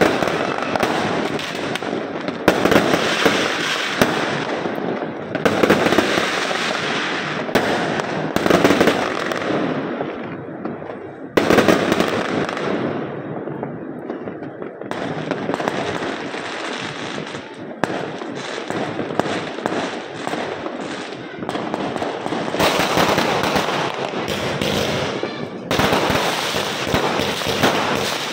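Aerial fireworks going off in a dense, continuous barrage of bangs and crackling.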